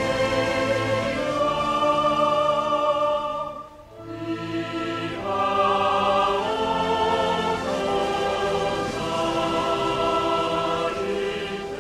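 Orchestral music with a choir holding long notes. It briefly drops away about four seconds in, then swells back.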